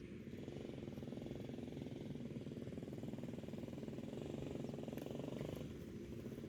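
An engine running with a rapid, even firing pulse, a little louder toward the end before dropping off about five and a half seconds in.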